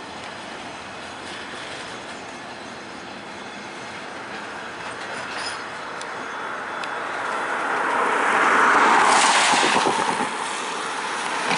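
Freight train's covered hopper cars rolling slowly along the rails: a steady wheel-on-rail noise that grows louder about eight seconds in as the leading car draws near.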